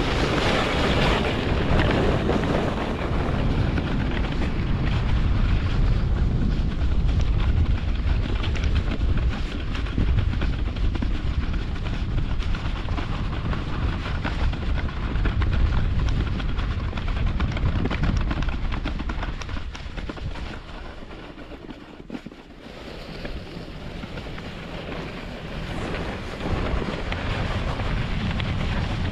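Wooden German Luge 115 toboggan sliding down a snow run: a continuous rumbling scrape of its runners over the packed snow, with wind buffeting the microphone. The noise eases for a few seconds about two-thirds of the way through, then builds again.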